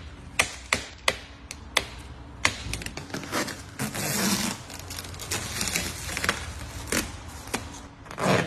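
Plastic protective film on a car body crackling and clicking in sharp, irregular snaps as fingers pick at and lift its edge. Near the end it turns into a louder rasping tear as the film starts to peel away from the paint.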